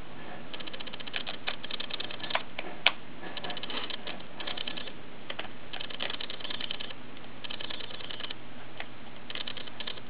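Small screwdriver working the keyboard screws out of an HP 2133 Mini-Note's underside: repeated bursts of fine, rapid clicking, with one sharper click about three seconds in.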